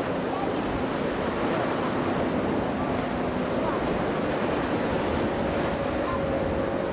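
Wind buffeting the microphone over the rush of surf at an ocean inlet, with the faint steady drone of boat engines underneath.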